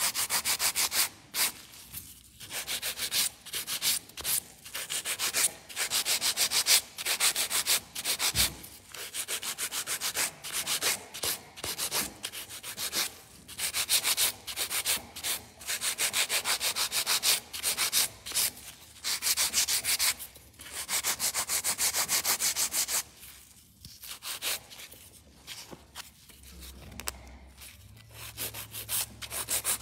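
Hand-held nail file rasping over an acrylic stiletto nail extension in quick back-and-forth strokes, with short pauses. The strokes grow softer in the last few seconds.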